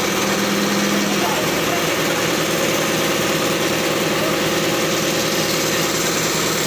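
Crane truck's engine idling steadily with a continuous mechanical drone; a low hum drops out about a second in.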